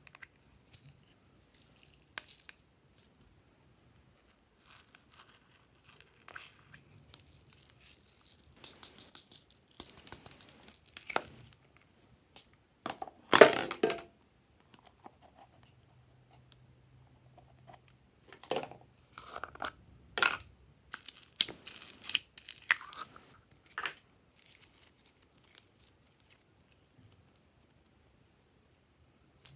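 Intermittent crinkling, crackling and rustling as slime decorations are handled and dropped into glass dishes of slime. The loudest burst comes just before halfway, as a handful of sequins goes in.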